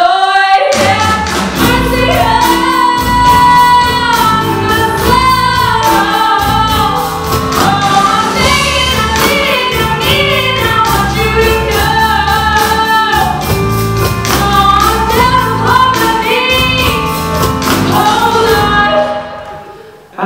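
Female lead singer belting into a microphone over a live band of drums, electric bass and keyboard, with a steady beat. Near the end the band stops and the sound drops away.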